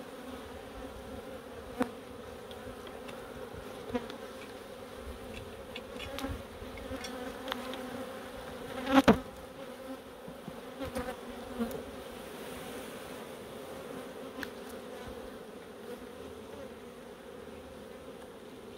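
Honeybees buzzing steadily in a swarm around an opened hive, with a few light clicks and one sharp knock about nine seconds in.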